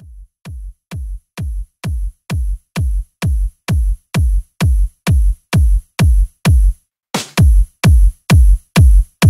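Electronic dance music intro: a kick drum on every beat, a little over two a second, with a bright high tick over each, fading in and growing louder. The beat drops out briefly about seven seconds in and comes back fuller and louder.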